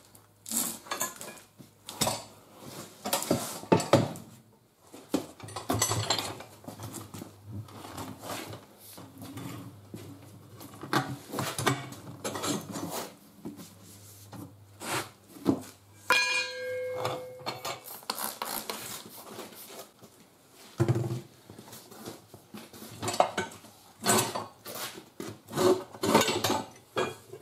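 Manual tire changer being worked by hand: repeated metal clanks and knocks as the steel bead breaker and mount/demount bar are levered against the wheel rim, with the rubber tire scraping and sliding as its bead is pried off. A little past halfway a struck metal part rings briefly with a clear tone.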